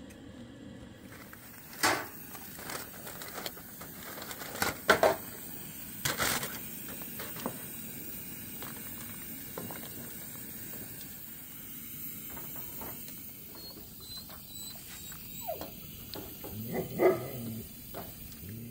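Dog barking and whining in short bursts, with a few sharp knocks in between, over a steady background hiss.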